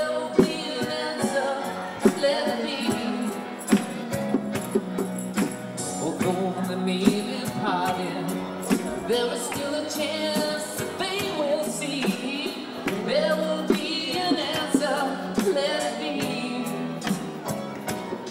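A song: a voice singing a melody over instrumental backing music with a percussion beat.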